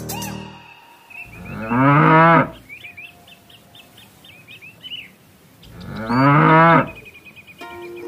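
A cow mooing twice, each call about a second long and starting low before rising, with faint bird chirps in between.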